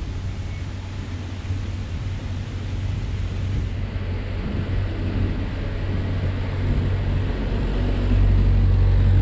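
Narrowboat diesel engine running at a steady low thrum, growing louder about eight seconds in.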